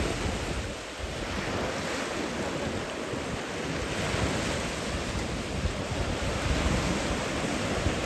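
Small surf breaking and washing up on a sandy shore: a steady wash of waves, with wind buffeting the microphone in low gusts at times.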